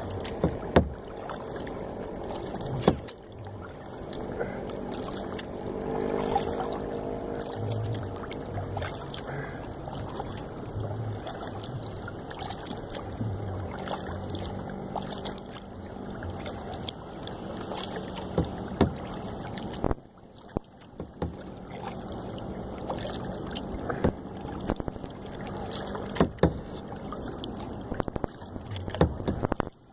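Kayak paddling on calm lake water: the paddle blades dipping and splashing in repeated strokes, with a few sharp knocks.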